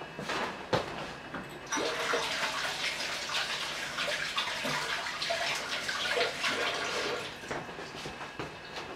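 Chicken thigh pieces sizzling and crackling in hot coconut oil in a frying pan over a gas flame. A few light knocks come first; the sizzle starts suddenly about two seconds in and fades near the end.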